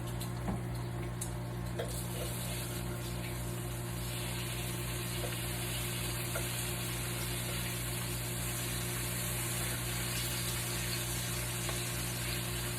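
Bacon sizzling in a frying pan, a steady hiss that grows louder within the first few seconds, with a couple of light clicks near the start as the strips are flipped. A steady low hum runs underneath.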